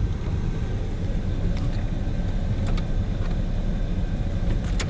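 Pickup truck running, heard from inside the cab: a steady low rumble with a few faint clicks.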